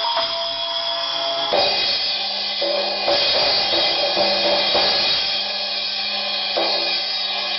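Meinl Lightning cymbals with rippled sound-edge rims, struck several times and ringing in a dense, shimmering wash, with fresh hits about a second and a half in, around three seconds, twice near the middle, and again near the end.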